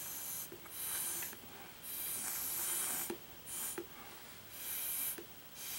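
A series of about six puffs of breath blown through a drinking straw onto wet watercolour paint, each a breathy hiss lasting under a second, with short pauses between.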